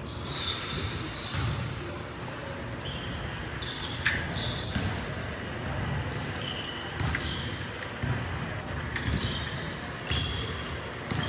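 Basketball game play: sneakers squeaking in many short chirps on the court floor, mixed with the thuds of a basketball bouncing and a few sharp smacks.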